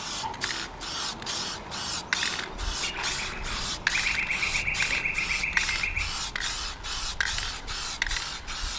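Hand rubbing or sanding of a painted aluminium boat hull with a pad: quick back-and-forth strokes, about three a second.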